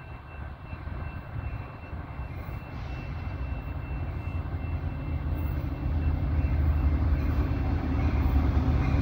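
Diesel locomotive of an approaching Metra commuter train: a low engine rumble growing steadily louder as the train nears.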